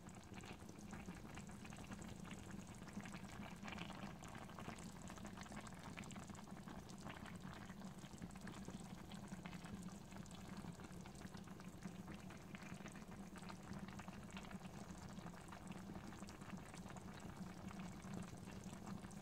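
Chicken, potato and green pea stew simmering in a pan on low heat, with faint, steady bubbling.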